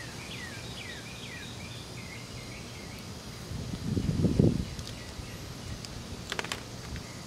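Scissors snipping clear heat-shrink tubing, with a few sharp clicks of the blades about six and a half seconds in. Birds chirp in the background early on with short falling calls, and a brief low rustling noise swells about four seconds in.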